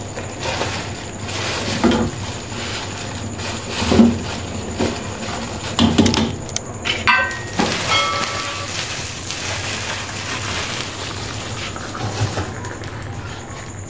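Milky tea being poured from a steel saucepan through a plastic tea strainer into paper cups, with several knocks and ringing metal clinks as the pan is handled on the gas stove's grate partway through, then a steady pouring rush that stops near the end.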